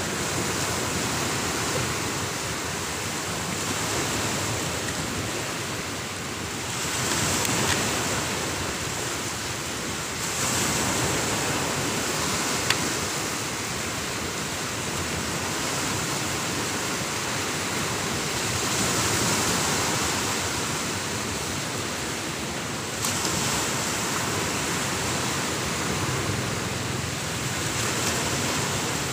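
Ocean surf breaking on the beach: a dense, steady wash that swells and eases every few seconds as the waves come in.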